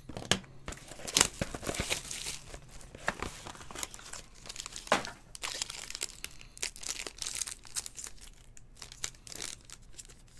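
Plastic and foil wrapping of a Topps Tier One baseball card pack crinkling and tearing as it is unwrapped by hand: irregular crackles, with a few sharper rips about a second and about five seconds in.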